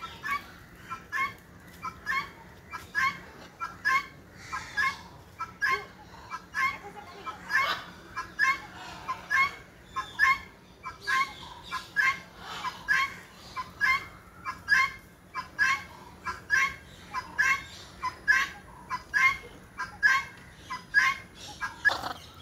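A bird calling over and over in a steady rhythm, about two short calls a second.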